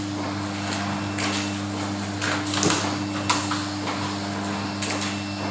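Cup water filling-and-sealing machine running with a steady hum, with a few sharp clacks from its mechanism.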